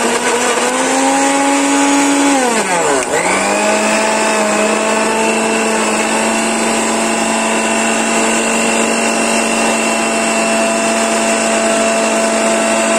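Electric mixer grinder running with a steady whine while grinding raw potatoes in its stainless steel jar. About two and a half seconds in, the motor winds down briefly, then starts up again and runs steady.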